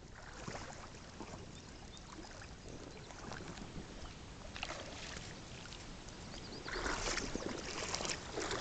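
River water and breeze, faint and steady, with wind buffeting the microphone from about two-thirds of the way in.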